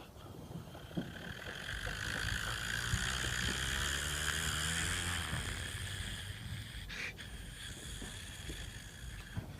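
A motor vehicle driving past, its engine hum and tyre noise swelling to a peak about four seconds in and then fading away. A short sharp crack sounds about seven seconds in.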